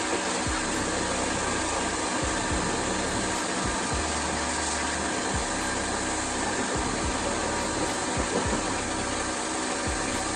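Steady motor-driven rushing air noise with a constant hum, from cleaning equipment working on the truck's dusty interior.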